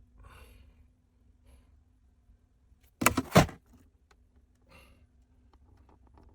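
A brief clatter of hard objects knocking together about three seconds in, with faint handling noises around it.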